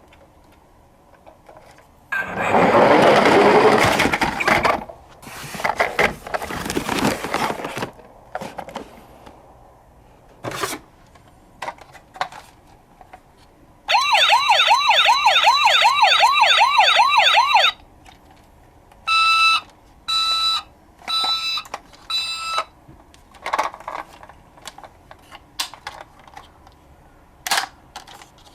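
Toy police car's electronic siren sounding a fast warble, about four sweeps up and down a second, for nearly four seconds, followed by four short beeps. Before it, a few seconds of loud noise and scattered clicks.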